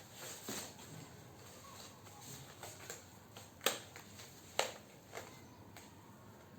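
Quiet handling noises of unpacking the ukulele, with a few short sharp clicks, the two loudest about three and a half and four and a half seconds in.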